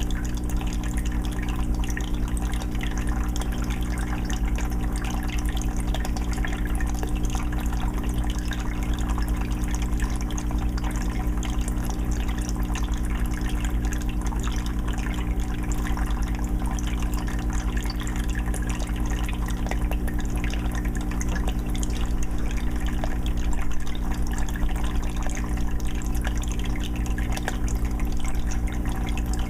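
A 20-gallon fish tank's filter running: water trickling and splashing steadily, over a steady low hum.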